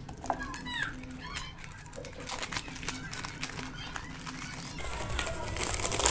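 Clear plastic bag crinkling and rustling as it is pulled off a new laser toner cartridge, building up and getting louder near the end. A few bird chirps can be heard in the background at the start.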